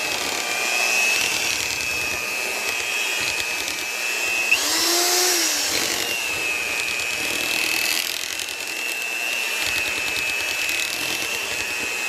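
Electric mixer motor running steadily with a high whine as it whips cheesecake batter. The whine breaks off for about a second and a half near the middle, with a click, then picks back up.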